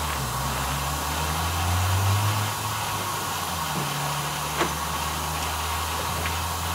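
Diesel engine of a Volvo VHD dump truck idling steadily with a low hum, and a short click a little past halfway through as the tilt hood is pulled open.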